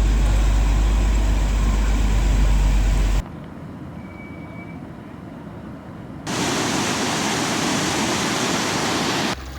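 Steady rush of floodwater in three cut segments: loud with a heavy low rumble for about three seconds, much quieter for the next three, then loud and hissing again.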